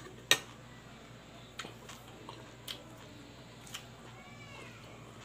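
Close-up eating sounds: chewing with sharp mouth clicks and smacks, the loudest just after the start. A brief high cry that rises and falls comes about four seconds in.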